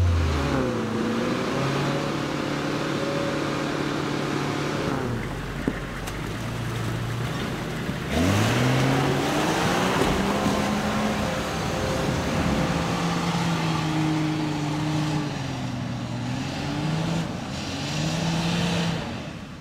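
Off-road 4x4 engines revving and labouring under load as they climb through mud and rocks, the pitch rising and falling with the throttle. One revs up sharply about eight seconds in.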